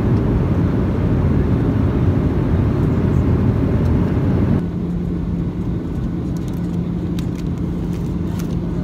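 Steady rumble of a moving vehicle heard from inside. A little past halfway it cuts abruptly to a quieter rumble with a steady low hum.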